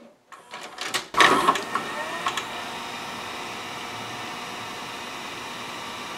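A Sony SLV-740HF VHS VCR takes in a cassette with a clatter of its loading mechanism. Then its video head drum (cylinder) motor spins up with a rising whine and runs on with a steady hum. Nothing else in the transport starts, neither the capstan motor nor the reel check; this is the symptom of the machine's load-then-eject fault, whose most likely cause is a gummed-up friction clutch.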